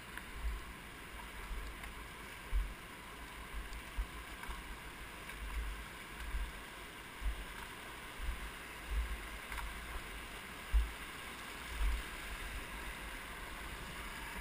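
A fast mountain stream rushing over stones: a steady hiss, with irregular low thumps every second or so.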